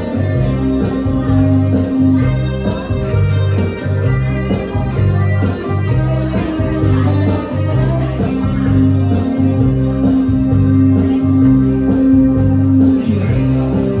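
A small band playing an instrumental passage live in a room: electric guitars and keyboard over a steady low bass pulse of about two notes a second.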